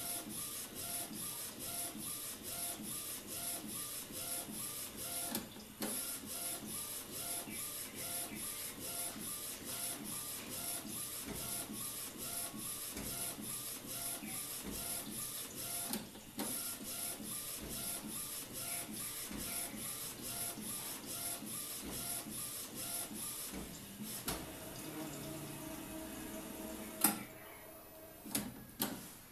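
Desktop UV flatbed printer printing on a TPU phone case: the print-head carriage shuttles in a fast, even mechanical rhythm, broken briefly twice. Near the end the rhythm stops, a steady motor hum follows as the print bed comes out, then a sharp click.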